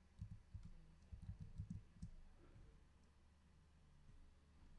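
Faint computer keyboard typing: a quick run of keystrokes in the first two seconds, then only a faint low hum.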